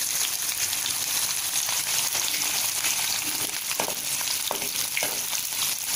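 Chopped small onions sizzling in hot oil in a nonstick pan, stirred with a spatula, with scattered light ticks over a steady high hiss.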